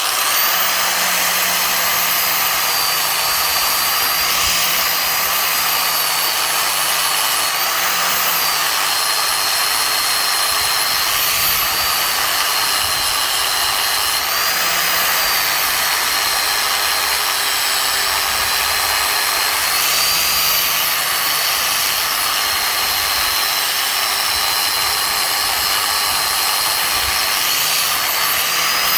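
Angle grinder with a flap disc running continuously while dressing sharp spot welds on a steel trailer frame. Its steady high whine dips in pitch and recovers a few times as the disc is pressed against the metal.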